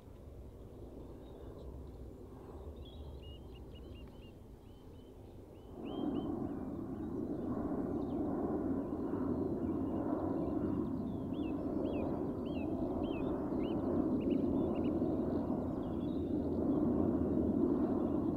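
Distant rumble of an Embraer E190 airliner's jet engines as it climbs away, stepping up suddenly about six seconds in and holding steady. A small bird chirps repeatedly over it.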